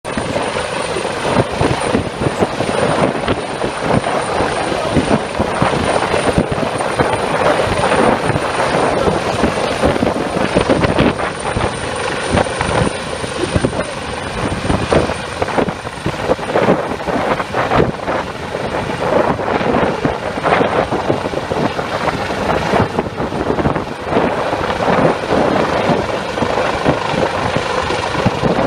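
Helicopter hovering low over the sea, its rotor and engine running loud and steady.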